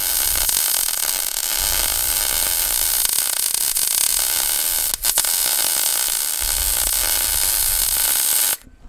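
Loud, steady hissing noise of shop equipment running, with a brief break about five seconds in; it cuts off abruptly near the end.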